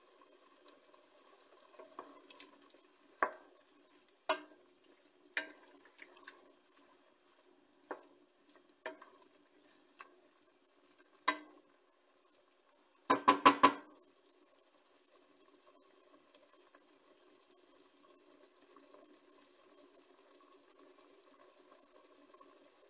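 Wooden spoon stirring diced chicken and onion in a stainless steel pot, knocking against the pot every second or so, with a quick run of four or five louder knocks a little past halfway. Under it the meat juices simmer faintly and steadily.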